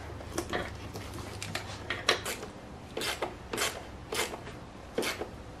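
Scattered sharp clicks and knocks, about six of them, from hands and a screwdriver working on the plastic intake boot, its hose clamp and the throttle body of an E36 M3's engine.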